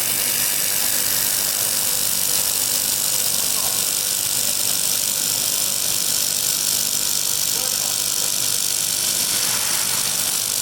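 Laser welding machine running with a steady high-pitched hiss.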